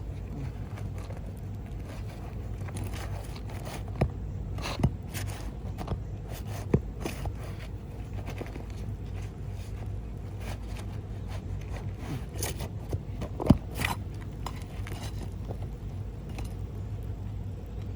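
Scraping and a few sharp knocks from work on an asphalt shingle roof, over a steady low rumble.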